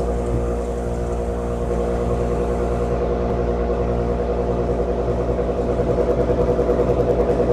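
Automated people-mover tram running along its elevated guideway, heard from inside the car: a steady hum with several held tones over a low rumble. It takes on a rhythmic pulsing that grows stronger in the last couple of seconds.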